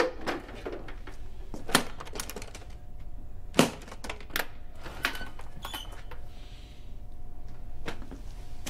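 A handful of sharp knocks and metallic clinks spread over several seconds, a couple of them ringing briefly, as a perforated metal wall panel is worked loose and lifted off.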